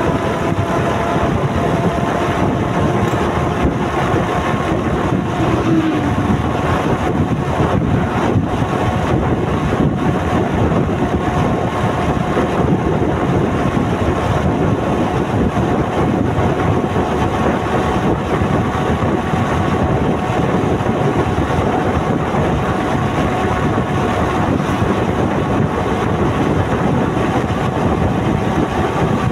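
Motorcycle running steadily at road speed, with wind rushing over the microphone. A faint whine rises slowly in pitch through it.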